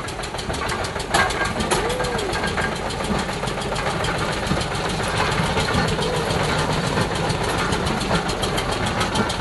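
Small engine of a motorised rail inspection trolley running steadily, with people talking faintly over it.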